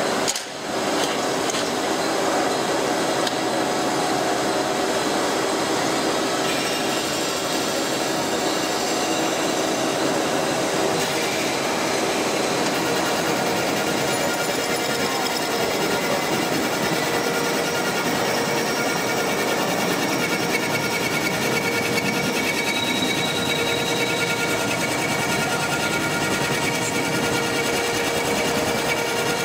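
Vertical milling machine running, its end mill cutting a metal workpiece under flood coolant: a steady, dense machining noise with several steady whining tones.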